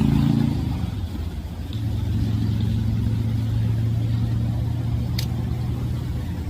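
Car engine running steadily with a low hum that drops briefly about a second in, then picks up again. One sharp click comes about five seconds in.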